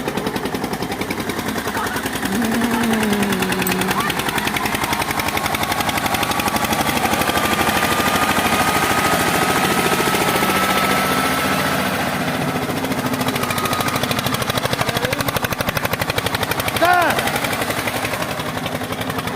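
Tractor diesel engine running with a rapid, even exhaust beat. A brief pitched sound rises and falls over it near the end.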